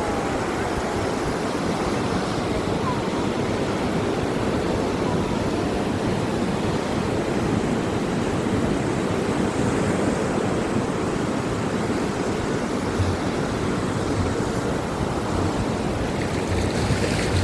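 Ocean surf washing steadily onto a beach.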